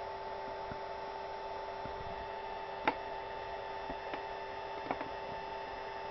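Steady electrical hum, with a few light clicks; the sharpest comes about three seconds in.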